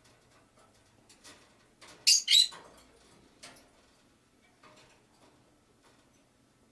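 Small pet parrots in a cage: two sharp, shrill chirps in quick succession about two seconds in, with faint light clicks and scratches of the birds moving about the cage.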